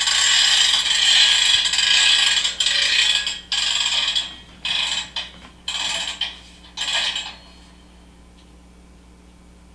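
Sound effect of a railroad freight car's hand brake being wound on, ratcheting: one long stretch of about three and a half seconds, then five shorter bursts, stopping about seven and a half seconds in.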